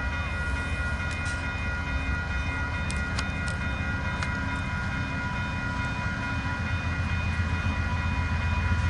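VIA Rail P42DC diesel locomotive pulling a passenger train away from a station: a steady low engine rumble that grows louder toward the end, with several steady high tones above it.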